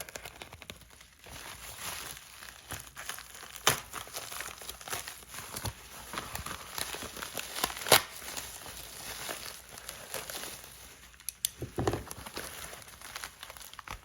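Packing material crinkling and tearing as a tightly packed parcel is opened by hand. There is continuous crackling throughout, with a few sharp snaps standing out.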